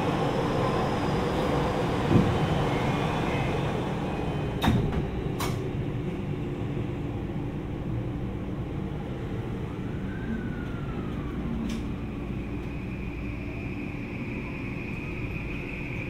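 Cabin of a Tokyu 3020 series train as it pulls out of a station: steady air-conditioning and running noise, with a knock about two seconds in and two sharp clicks about five seconds in. A faint whine rises and falls, then a steady high tone sets in about twelve seconds in.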